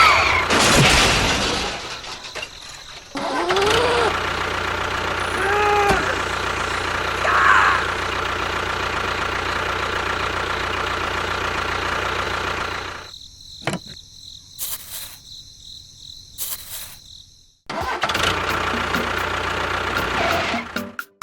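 Engine running steadily, with a few short arching tones over it. It cuts out briefly about two seconds in, and again for about four seconds later on, leaving only scattered clicks, then runs again.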